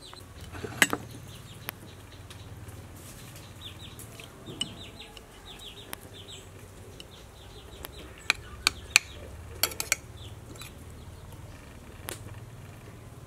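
A metal spoon clinking against a ceramic soup bowl and rice plate: scattered sharp clinks, with a quick cluster about two-thirds of the way through. Chickens clucking in the background.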